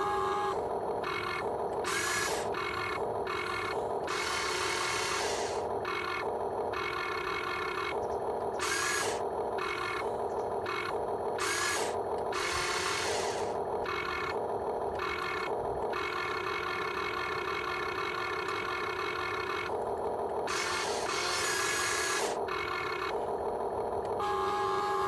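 Huina 1592 RC excavator's electric motors and gearboxes whirring in irregular stop-start bursts as its controls are worked, with a rubbing, scraping edge.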